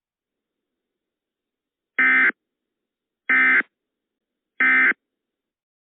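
Three short bursts of Emergency Alert System digital data tones, evenly spaced about a second apart: the SAME end-of-message (EOM) code that closes an EAS alert.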